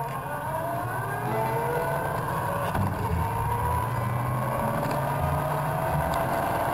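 Motorcycle engine pulling under way, its pitch rising slowly as the bike gathers speed, over a steady low rumble.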